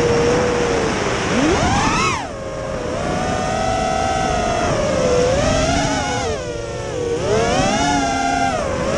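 Five-inch FPV quadcopter's four brushless motors (T-Motor F60 III 2750kv on 5-inch props) whining, the pitch swinging up and down with the throttle. There is a sharp rise and fall about two seconds in, then a higher, steadier whine that dips and swells twice more.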